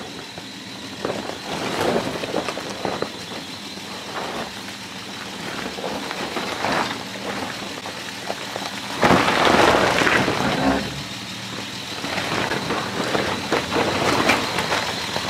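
Nissan Patrol 4WD crawling up a steep, loose rocky track: the engine runs low and steady under tyres crunching and popping over rocks. About nine seconds in there is a louder stretch of about two seconds.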